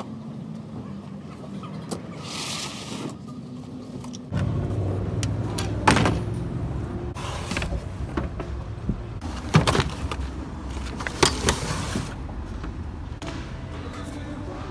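Wooden produce crates and plastic growing trays knocked and set down in a pickup truck bed: several sharp knocks and clatters over a steady low rumble that comes in a few seconds in.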